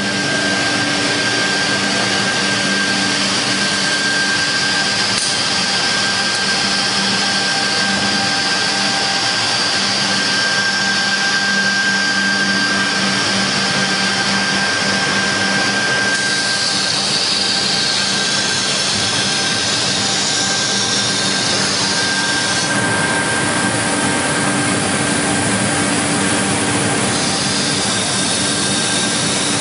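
Industrial panel-processing woodworking machinery running: a steady loud mechanical din with a constant low hum and a thin high whine over a dense hiss.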